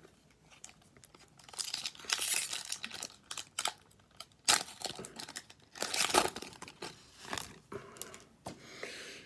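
Hockey card pack wrapper crinkling and being torn open, a run of sharp, crackly rustles that comes in bunches.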